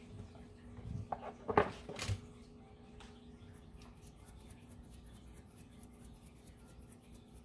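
A brief flurry of clicks and light knocks from kitchen things being handled, about a second or two in, over a faint steady hum.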